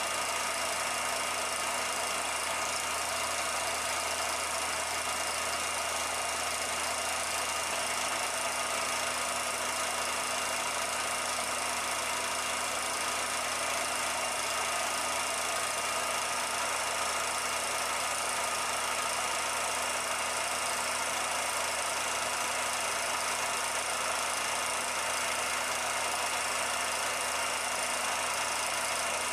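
Film projector running steadily: an even mechanical whir with hiss and a constant hum, no change throughout.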